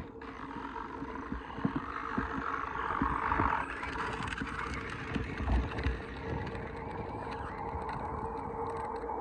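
Battery-powered toy ride-on motorcycle running, its small electric motor giving a steady whine while the plastic wheels crackle over gravel with scattered clicks.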